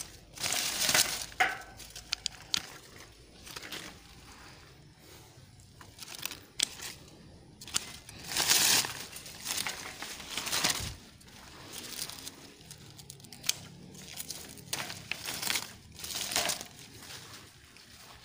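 Grapevine leaves and canes rustling as they are handled and pulled, broken by a few sharp snips of hand pruning shears cutting the canes.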